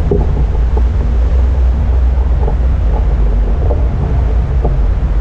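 Loud, steady low rumble of wind buffeting the microphone of a camera mounted on a tandem hang glider in flight.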